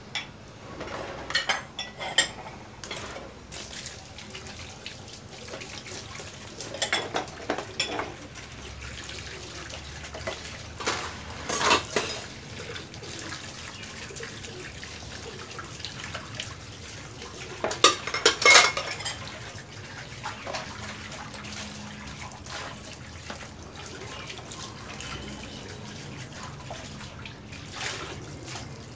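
Bowls being washed by hand under a running tap: water runs steadily into a basin while the bowls clink against each other now and then, loudest around twelve and eighteen seconds in.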